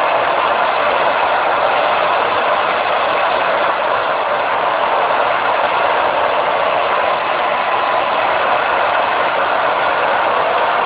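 Handheld hair blow-dryer running steadily: a loud, even rush of air with a faint whine.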